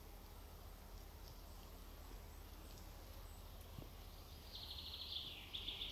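Faint woodland ambience; about four and a half seconds in, a small songbird sings a rapid high trill that steps downward in pitch and lasts about two seconds.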